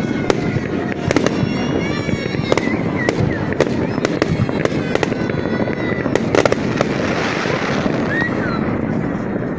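Fireworks display going off: a dense, continuous rumble of explosions with many sharp bangs and crackles scattered through it.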